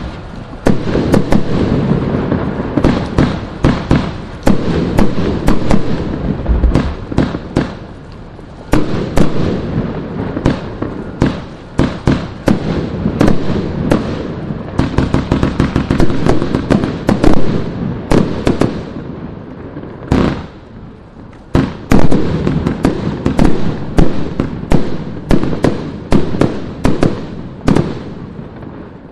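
Vivid Pyrotechnics Bloodshot 139-shot 30mm compound firework cake firing: a rapid run of tube launches and mid-air bursts. It eases briefly about a third of the way through and again about two-thirds through, then resumes with a loud burst.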